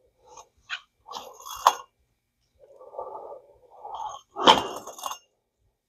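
Old fishing line being stripped off a spincast reel's spool by hand: irregular rustling and scraping with a few sharp clicks, the loudest about four and a half seconds in.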